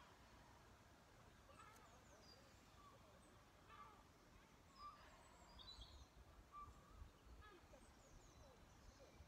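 Faint birdsong: scattered short chirps and whistles over a quiet outdoor background.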